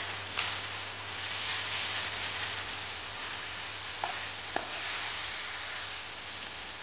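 Chopped beans and potato sizzling steadily as they fry in a wok, stirred with a metal spatula that clicks against the pan a few times.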